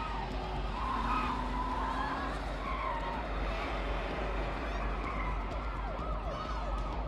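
Police sirens wailing, their pitch sweeping up and down, over a steady wash of street and traffic noise.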